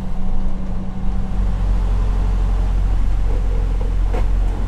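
Freightliner Cascadia semi truck heard from inside the cab while driving: a steady low engine and road drone that grows stronger about a second in, with one brief click near the end.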